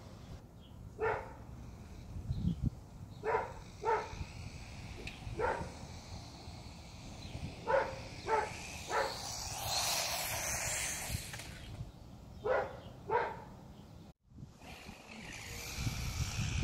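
A dog barking in short bursts of one to three barks, scattered through the stretch. A rushing noise swells and fades in the middle, and another builds near the end.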